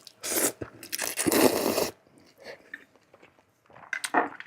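A person eating close to the microphone, biting into and chewing a marinated soft-boiled egg. There are two loud, noisy mouthfuls, the second lasting about a second, followed by softer chewing clicks.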